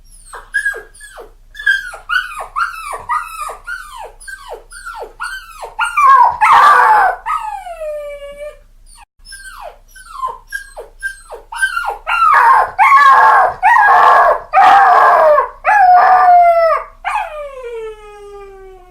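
A puppy crying: a run of short, high whimpers that fall in pitch, about two a second. Louder drawn-out cries break in about six seconds in and again through the middle of the second half. A long whine falling in pitch follows each loud stretch.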